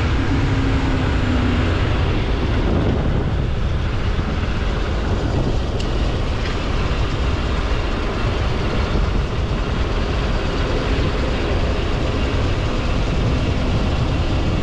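Motorcycle on the move: a steady rush of wind buffeting the microphone, mixed with the bike's engine running.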